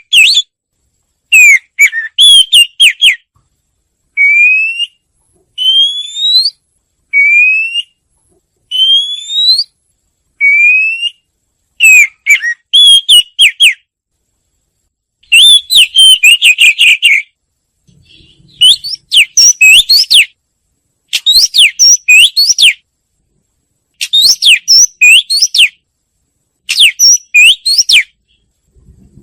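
Wagtail song: clear whistled notes that slide upward, given one at a time with short pauses, alternating with bursts of quick twittering notes.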